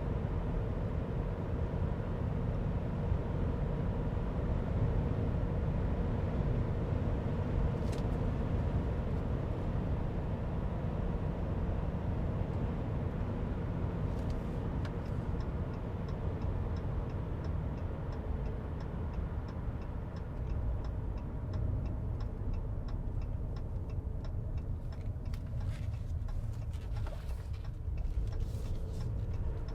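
Cabin noise of a 2022 Ram 3500 HD dually with the 6.7-litre Cummins turbo diesel driving on the road: a steady low rumble of tyres and road with a faint engine drone. A single click comes about eight seconds in, a light regular ticking runs for several seconds past the middle, and a few scattered clicks come near the end.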